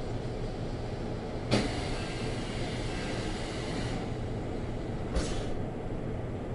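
Steady rumble inside a JR Central 373 series electric train, with a sudden hiss of compressed air about a second and a half in that fades over a couple of seconds, and a second, shorter hiss near the end.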